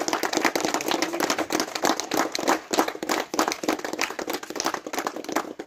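A small group applauding, dense hand-clapping that stops abruptly at the end.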